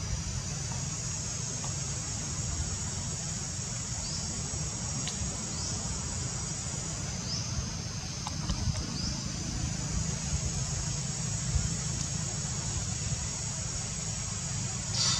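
Steady high-pitched drone of an insect chorus, with a low rumble underneath and a few short rising chirps.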